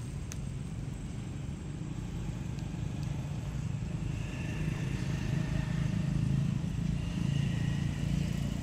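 Low, steady engine-like rumble, as of a motor vehicle running, getting a little louder about halfway through, with faint high thin tones over it near the end.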